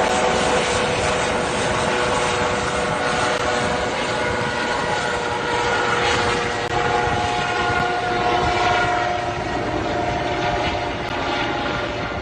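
Firefighting helicopter's engine and rotor running steadily, with a whine that moves up in pitch about halfway through; the sound eases off slightly near the end.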